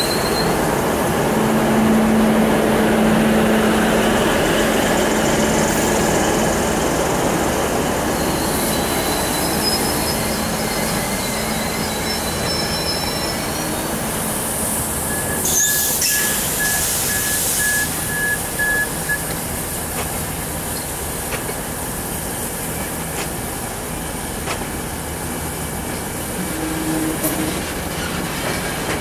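A diesel railcar running slowly through a station, with a steady rumble of engine and wheels. Thin high wheel squeals come and go over it. About fifteen seconds in there is a short burst of hiss, followed by a few seconds of beeping.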